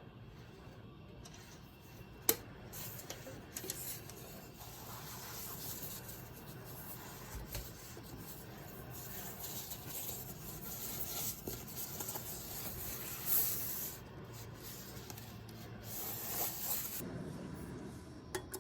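Rubbing and scraping sounds that come and go, with a sharp click about two seconds in and a few lighter ticks.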